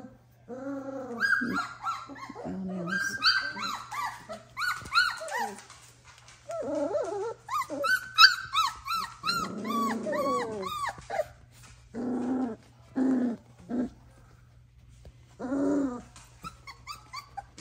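Doberman puppies yelping and squealing in a quick run of many high, arching cries for about ten seconds, then three short, lower growly barks.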